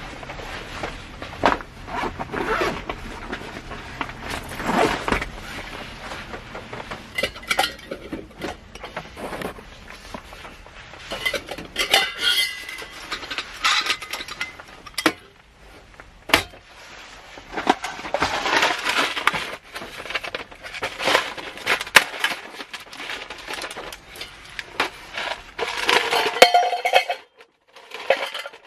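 Clinks and knocks of tableware and utensils being handled, with irregular rustling between them.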